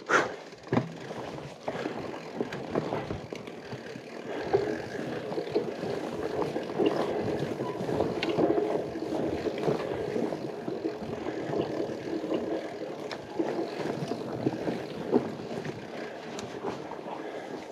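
Pole Taiga fatbike rolling over rough, wet forest ground: a steady tyre noise with scattered small knocks and rattles from the loaded bike, and a sharp click right at the start.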